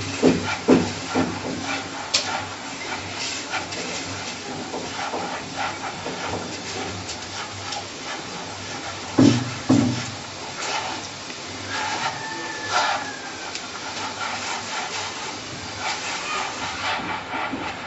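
Hands rubbing and rolling damp semolina against a dish to form berkoukes grains: a steady gritty rustle of grains with many small clicks, and a couple of dull thumps about nine seconds in.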